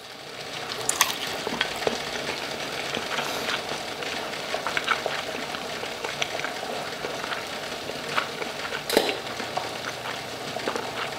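Oil frying: a steady sizzle with scattered crackles and pops, and one sharper pop about nine seconds in.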